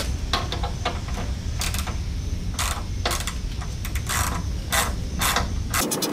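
Socket ratchet clicking in short bursts of strokes as it turns fasteners on the carburetor of a Briggs & Stratton lawn mower engine, over a steady low hum. Just before the end the hum stops and a quicker run of fine clicks starts.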